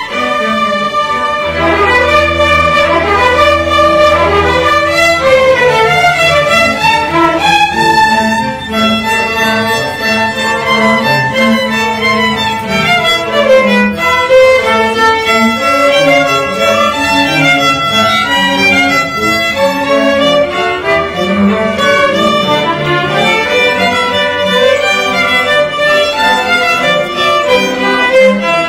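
String ensemble of violins, cellos and double bass playing a piece, the violins carrying a moving melody over the lower strings. A long low bass note sounds about two seconds in.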